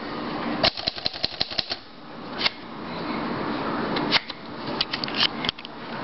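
Royal Quiet De Luxe portable typewriter clacking as keys are struck: a quick run of keystrokes about a second in, then a few scattered clacks.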